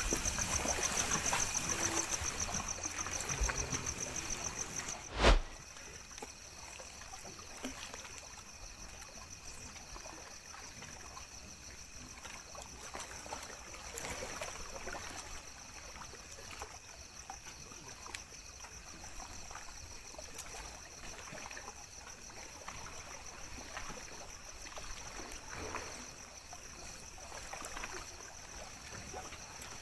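Small lake waves lapping and trickling against the shore, a soft even wash with a steady high-pitched pulsing tone running underneath. A single sharp knock comes about five seconds in, and everything is quieter after it.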